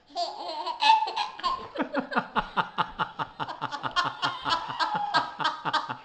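A woman and a baby laughing together: long, hearty laughter that falls into a quick ha-ha-ha of about five pulses a second from about a second and a half in.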